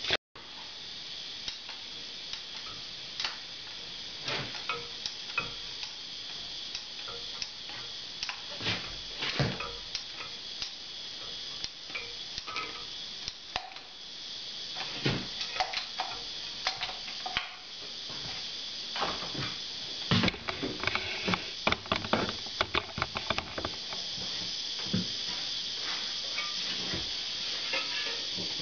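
Irregular clicks and knocks from hand work over a steady hiss, among them the clicking of a caulking gun squeezing out beads of construction adhesive onto a board. The clicks come thickest about two-thirds of the way through.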